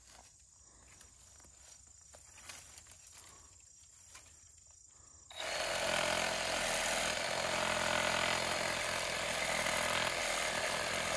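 Milwaukee Sawzall reciprocating saw with a pruning blade starting suddenly about five seconds in and running steadily as it cuts a branch. The blade is slow to get through because the saw's shoe is not resting on the branch.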